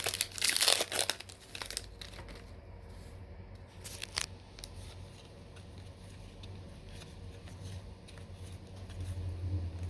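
A trading-card pack's foil wrapper being torn open and crinkled in the hands. The crackling is dense for about the first two seconds, with one more sharp rustle about four seconds in, then only faint handling.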